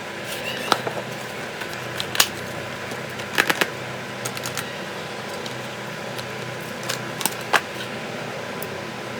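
Sharp clicks and taps from handling a smartphone and its packaging during unboxing, a few single and a few in quick runs, over a steady fan-like hum.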